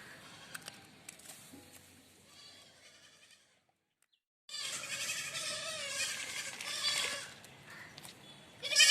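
Animal calls: after a brief dropout about halfway, a loud, wavering, bleat-like cry lasts about three seconds, and another loud call comes right at the end.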